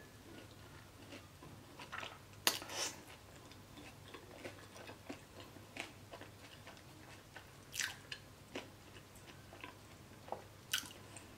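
Close-miked chewing of a mouthful of burger with lettuce: soft wet smacks and mouth clicks, with a few louder ones scattered through.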